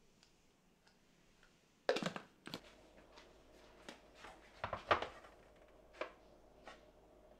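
A series of light knocks and clinks as a ceramic baking dish is handled and set down on a wooden board, starting about two seconds in, with the loudest knocks about five seconds in. A faint steady hum runs underneath.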